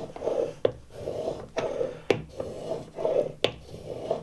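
Steel plane iron in a honing guide being rubbed back and forth on a wet waterstone in steady, rhythmic strokes, with a sharp click about every second and a half. This is the honing of a 30° micro-bevel on the edge.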